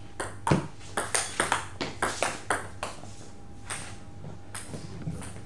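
Table tennis rally: the celluloid ball clicking against bats and table about a dozen times at a quick, fairly even pace over the first three seconds, then a few scattered taps.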